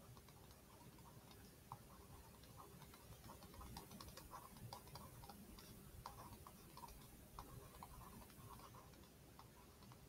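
Faint, irregular ticks and taps of a stylus on a tablet screen during handwriting, over near silence.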